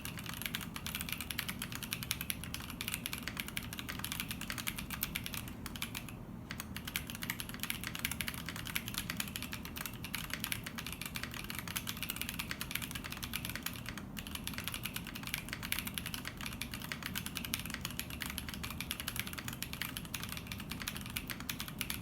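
Fast, continuous typing on a custom 65% mechanical keyboard with stock Holy Panda tactile switches, in an acrylic Tofu65 case on an aluminium plate. The typing breaks off briefly about six and fourteen seconds in.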